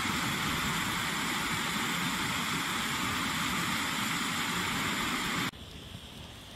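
Small waterfall cascading over rock ledges into a pool: a steady rush of falling water that cuts off abruptly about five and a half seconds in, leaving a much quieter hiss.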